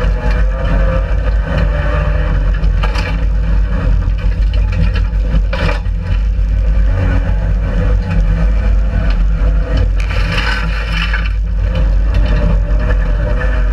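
Race car engine running hard under load, heard from inside the stripped, roll-caged cabin, with gravel rattling against the body and a few sharp knocks.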